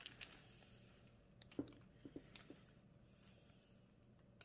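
Near silence, with a few faint clicks and crinkles of a plastic-film-covered diamond painting canvas being handled.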